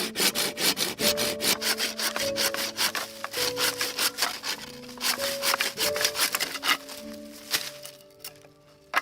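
Wood being sawn by hand in quick, rhythmic strokes, about four to five a second, that die away near the end. Background music with sustained melodic notes plays underneath.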